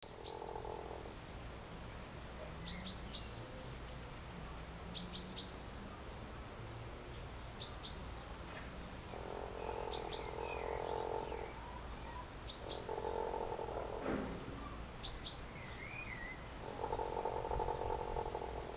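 Ex-battery hens purring: a low, trilling churr in stretches of a second or two, several times over. Short sharp high chirps come in twos and threes every couple of seconds.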